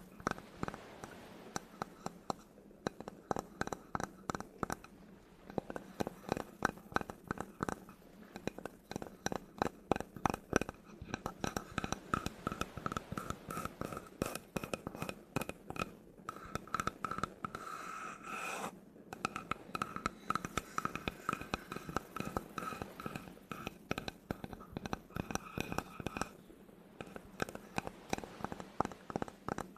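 Fast, irregular tapping on a wooden object, several taps a second, with a faint ringing after the taps and a short scratch about two-thirds of the way through.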